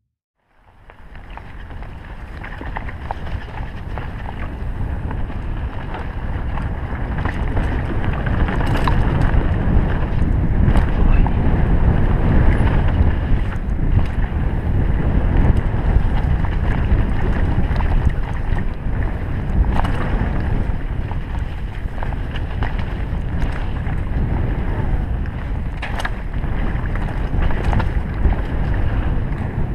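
Wind rushing over a helmet-mounted action camera's microphone and the tyres of a Sunn Charger S1 mountain bike rumbling on a dirt trail during a fast downhill run, with scattered sharp knocks and rattles from the bike over bumps. The noise starts about half a second in and builds over the first several seconds as the speed picks up.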